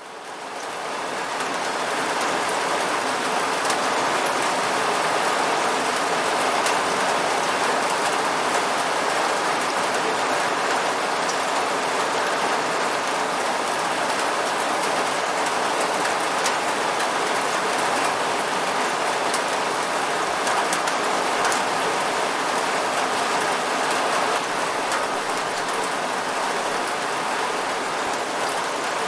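Steady rain falling, an even hiss with fine patter of drops, fading in over the first couple of seconds.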